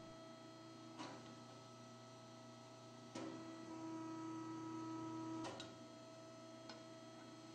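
Electric rebar bending machine humming, with sharp clicks as the bending turntable is switched on and off; from about three seconds in, a louder steady motor whine lasts about two seconds while the turntable turns to bend the bar, then drops back to the quieter hum.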